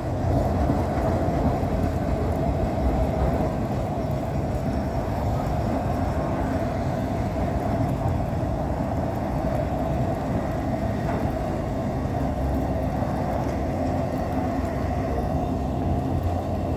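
Empty autorack freight cars rolling slowly past at about 15 mph, a steady rumble of steel wheels on the rails.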